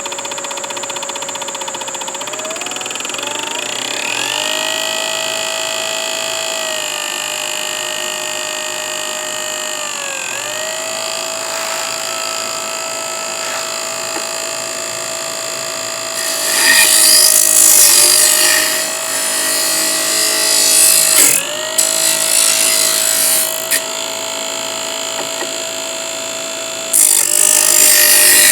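Parkside bench-top disc sander running with a steady motor whine, its pitch dipping briefly when work is pressed against the disc. From a little past halfway, wood being sanded on the spinning disc adds loud rasping stretches, breaking off now and then and starting again near the end.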